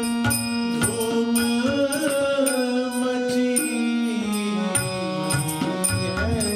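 Male voice singing a raag-based Kumauni baithak Holi in Raag Kafi, to a harmonium and tabla. The harmonium holds steady chords while the voice enters about a second in with a long, gliding sung phrase, over regular drum strokes.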